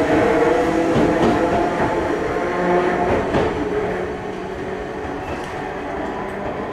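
Enoshima Electric Railway (Enoden) electric train, car 1151, pulling out of the station and running away over the points. Its wheels clack over the rail joints under a steady hum, and the sound fades as the train draws off.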